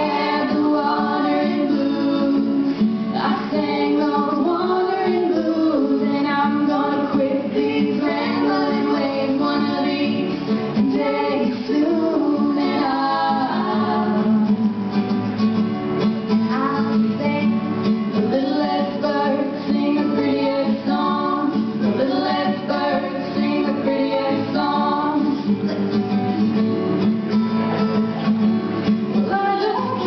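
Girls singing a song to an acoustic guitar accompaniment.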